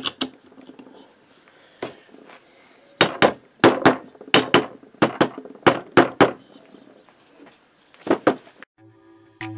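About a dozen sharp taps on the finned cylinder head of a Motobécane AV89 two-stroke moped engine, about three a second, as the head is tapped down onto the cylinder. Two more taps come near the end, after some lighter handling clicks.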